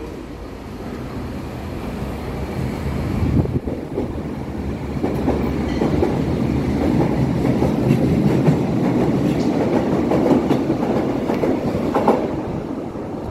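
Berlin U-Bahn train pulling out of an underground station, its running noise growing steadily louder as it gathers speed along the platform, peaking about two-thirds of the way through and easing a little near the end.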